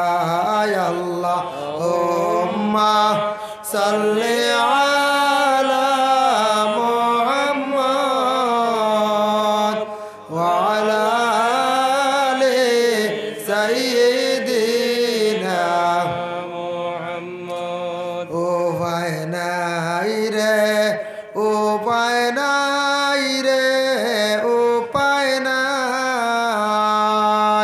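A man singing a Bengali Islamic devotional song (gojol) solo, drawing out long wavering notes in long phrases with short breaks for breath.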